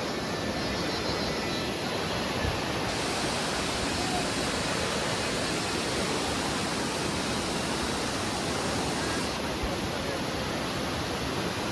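Steady rush of water from a waterfall, an even hiss without pauses.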